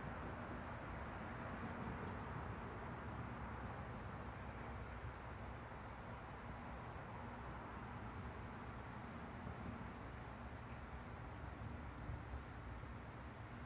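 A cricket's high, thin song, pulsing steadily about three times a second, over a steady low rushing outdoor background noise.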